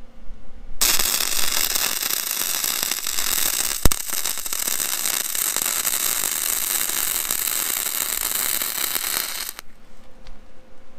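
MIG welding arc from a Vulcan OmniPro 220 running a bead on solid steel with .035 wire: a steady, dense crackle that starts about a second in and stops shortly before the end, with one sharp click about four seconds in.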